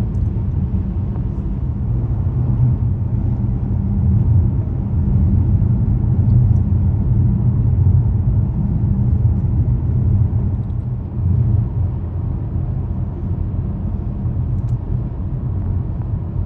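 Steady low rumble of a vehicle driving on the road, engine and tyre noise heard from inside the cabin.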